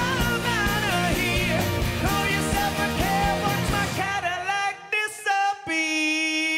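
Live pop-rock band with lead vocals playing the close of a song. About four seconds in, the drums and bass drop out, leaving a few sparse notes with short gaps and then one long held note.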